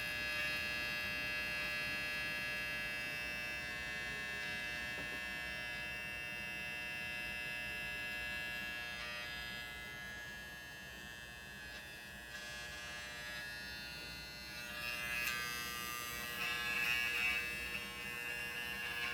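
A failing 8 TB Seagate internal hard drive buzzing like electric hair clippers: a steady whine made of many even tones. It thins out a little after the middle, then turns louder and rougher in the last few seconds. The drive had failed and its data could not be recovered.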